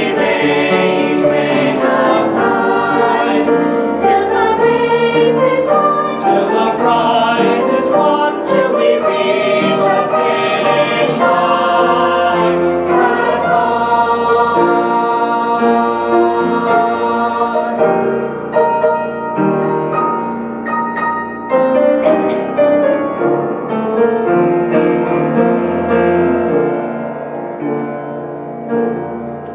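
Mixed-voice choir of young men and women singing a hymn together, the singing softening a little near the end.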